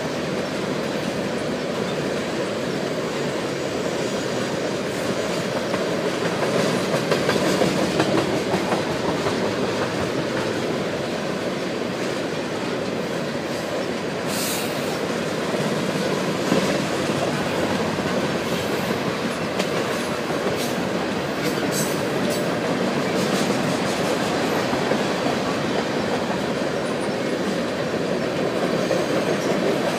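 Freight train of railroad tank cars rolling past steadily, with continuous wheel-on-rail rumble.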